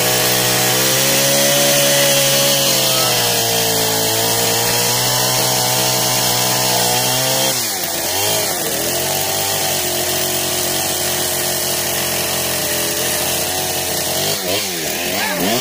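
Chainsaw running steadily while cutting into a tree trunk to free a trapped leg. Its note dips sharply about halfway through as the bar bites, then carries on a little lower and wavers near the end.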